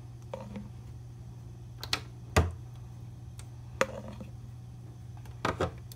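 Thin disposable aluminium foil pan clicking and crinkling while tomato sauce is spread across its bottom: a handful of scattered sharp clicks, the loudest with a dull thump about two and a half seconds in, over a steady low hum.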